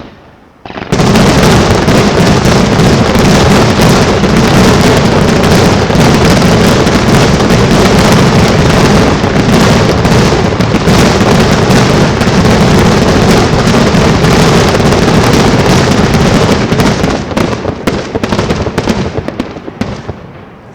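Fireworks going off in a dense, continuous barrage of bangs and crackles that starts suddenly about a second in, very loud throughout, then thins out into scattered bangs and fades over the last few seconds.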